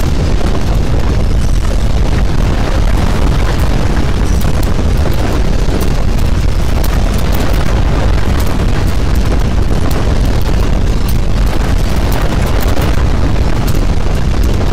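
Earthquake shaking sound: a loud, unbroken deep rumble with crackling and rattling over it.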